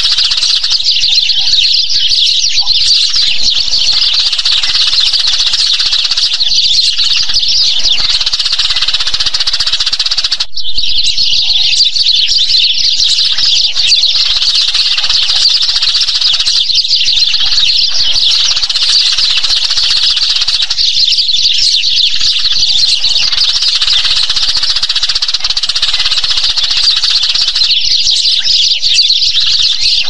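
Many Eurasian tree sparrows chirping at once in a dense, overlapping chatter, with a brief break about ten seconds in.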